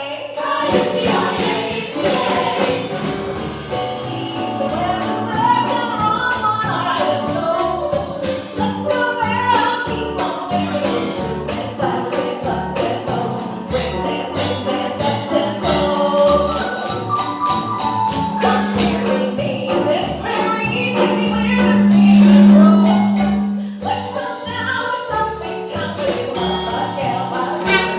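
A song performed live by several singers with musical accompaniment and light percussion. About two-thirds of the way through, one long low note is held and swells to the loudest point before the song carries on.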